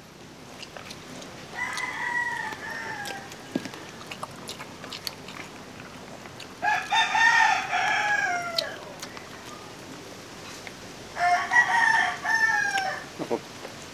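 Rooster crowing three times, each crow lasting a second or two and falling in pitch at the end.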